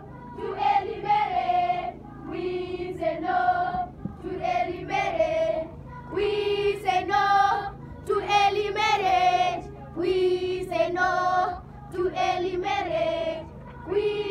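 A group of schoolchildren singing together in unison, a repeated chant-like song in short phrases of about two seconds each with brief breaks between them.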